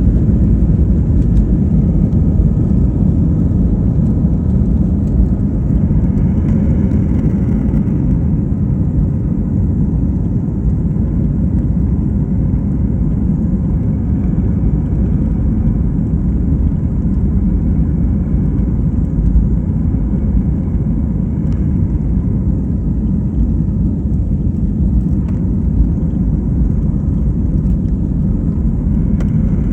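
Airliner engines and airflow heard from inside the cabin during takeoff: a steady, loud, low rumble with no clear rise or fall.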